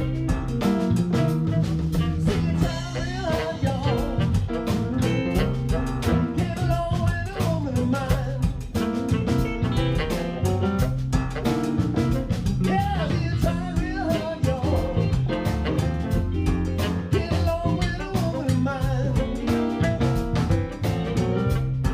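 Live blues jam: a band with guitar and drum kit playing a steady groove.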